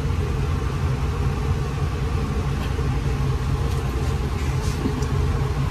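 Steady, loud low mechanical rumble with no change in pitch.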